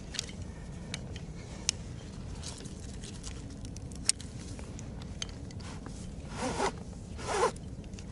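Climbing gear being handled while clipping in to a piton: scattered small clicks, then two short rasping pulls close together near the end.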